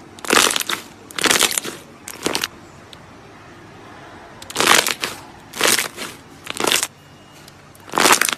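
Clear slime full of trapped air pressed down by hand, giving short crackling bursts as the air pockets pop and squelch out. There are about seven bursts, with a pause of a couple of seconds in the middle.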